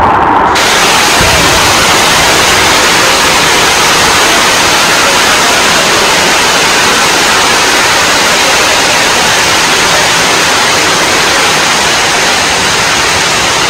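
Heavy rain pouring down onto standing floodwater and vegetation: a steady, loud hiss. It starts abruptly about half a second in.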